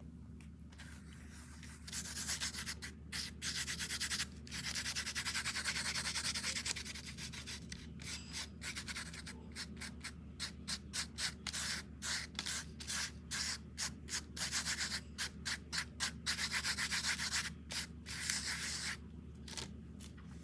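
Rubbing strokes against a surface: a longer stretch of rubbing, then quick back-and-forth strokes about two a second that stop near the end, over a steady low hum.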